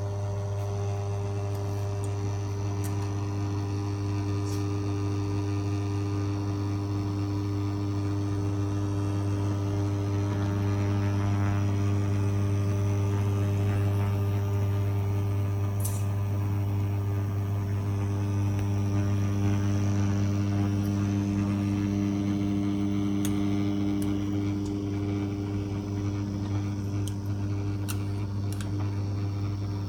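Bosch induction hob giving a steady low electrical hum with a ladder of overtones, swelling slightly louder through the middle; the owner takes this hum for a strange noise from the hob.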